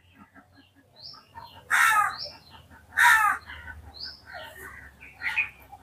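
Birds calling outdoors: two loud calls about a second apart and a fainter one near the end, over scattered short high chirps from small birds.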